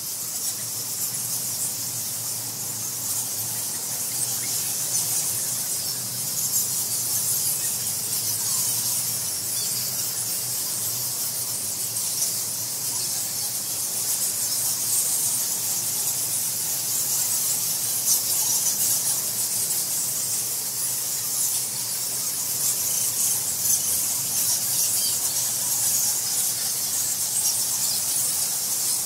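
A large colony of roosting bats squeaking and chattering without pause, a dense mass of many overlapping high-pitched squeals.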